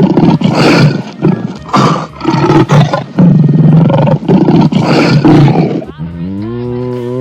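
Lion roaring, a series of rough, loud roars one after another. About six seconds in, the roars give way to a long, steady pitched tone.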